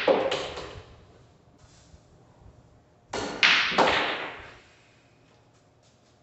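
Pool balls being struck: a shot at the start, with the cue tip's click followed by several quick ball-on-ball clacks that die away within a second. About three seconds in comes a second, louder run of clacks and knocks that fades over about a second and a half.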